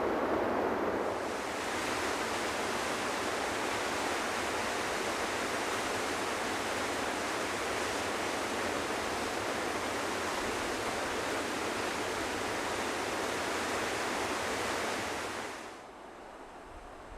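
Rushing water of mountain river rapids, a steady hiss. It changes character about a second in and drops off sharply near the end.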